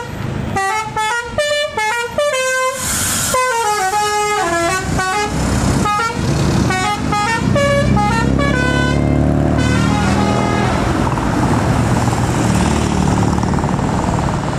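Bus 'telolet' air horn playing a quick tune of stepping notes for several seconds. Then the bus's engine and tyre noise swell as it drives past close by.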